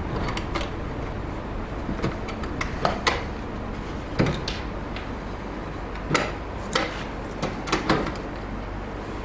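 Irregular clicks and knocks of concealed cabinet hinges and a cupboard door being handled and screwed into place, a dozen or so separate taps with pauses between them.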